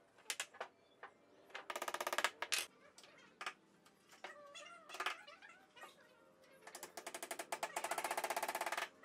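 Wooden clicking from thin wooden strips of a slatted table base being worked: a few single sharp knocks, and two runs of rapid, evenly spaced clacking, one about a second long and a longer one of about two seconds near the end.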